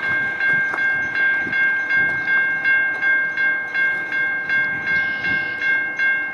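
Railway crossing bell ringing steadily, about two and a half strokes a second, over the low rumble of an approaching diesel freight train.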